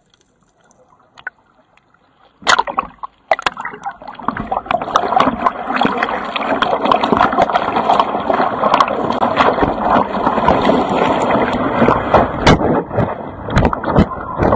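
Muffled, quiet water for about two seconds, then a sudden splash and a steady rush of seawater with many sharp splashes hitting close to the surfboard-mounted camera as the surfer paddles into and rides a wave.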